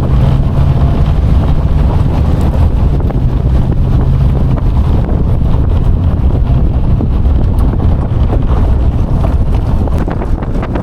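Wind buffeting the microphone in the open bed of a moving pickup truck, over a steady low rumble of road and engine noise. A low hum in the rumble fades out about four seconds in.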